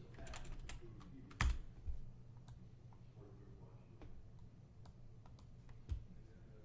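Typing on a computer keyboard: faint, irregular key clicks, the loudest about a second and a half in.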